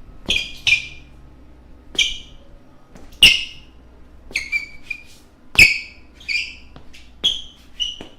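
Basketball shoes squeaking on a floor: about ten short, high squeaks at uneven intervals, a few of them with the thud of a footfall.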